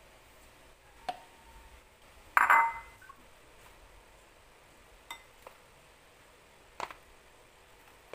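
A glass mixing bowl is set down on a tiled counter: one loud clink with a brief ring about two and a half seconds in. A few lighter knocks and taps come before and after it.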